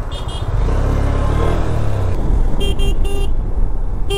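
Motorcycle engine running with road and wind noise while riding in traffic. A vehicle horn gives three quick toots about two and a half seconds in.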